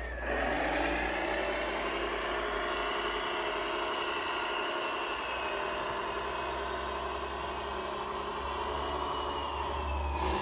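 A radio-controlled construction model running: a steady mechanical whine of several tones, rising in pitch about a second in and gliding down near the end.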